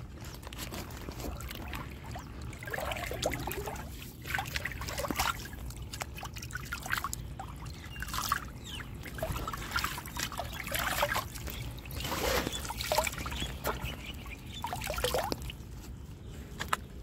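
Water trickling and splashing in irregular bursts.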